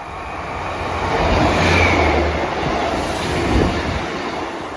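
Two coupled Class 150 Sprinter diesel multiple units passing through at speed: a rush of wheels on rail with the low hum of the underfloor diesel engines, swelling to its loudest about two seconds in and then fading, with a single clack a little past three seconds.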